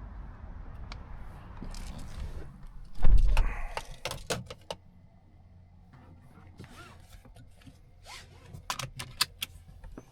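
Handling sounds in and around a Mazda 6e electric car. A low rumble gives way, about three seconds in, to a heavy thump with a cluster of clicks and rattles, and a few sharp clicks follow near the end.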